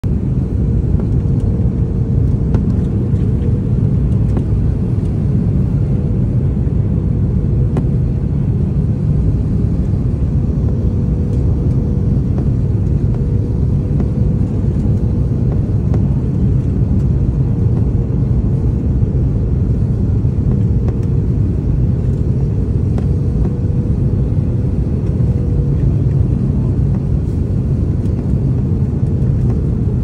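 Strong wind rumbling over the microphone, with a steady faint hum underneath.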